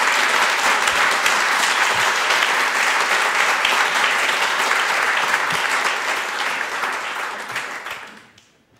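Conference audience applauding: a steady round of many hands clapping that fades out over the last two seconds.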